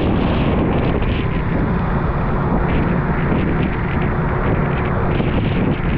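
A vehicle on the move: a steady low rumble of road and wind noise with a hiss above it.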